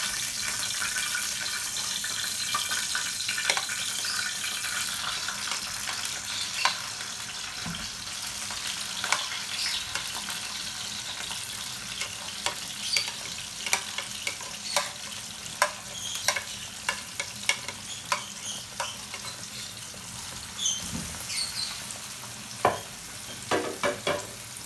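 Diced carrots and green capsicum frying in hot oil in a frying pan: a steady sizzle, with sharp taps of a wooden spoon against the pan that come often from about halfway on.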